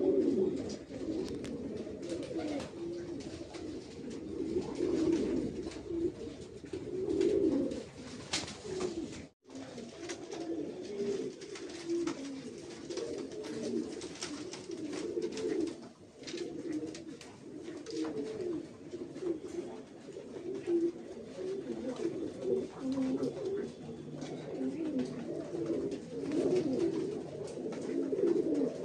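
Domestic pigeons cooing continuously, several birds' low warbling coos overlapping, with a brief break about nine seconds in.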